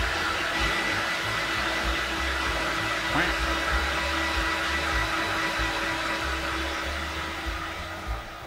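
Handheld hair dryer running on its high setting, a steady blowing whir with a faint whine, drying a wet cat's fur. The sound drops away over the last second or so.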